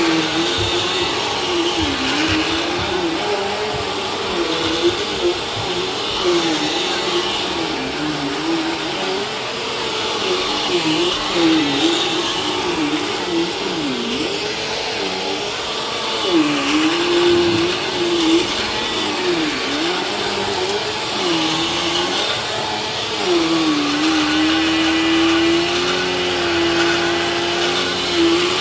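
Vacuum cleaner running steadily, its motor hum dipping in pitch and recovering again and again, then holding level for the last few seconds.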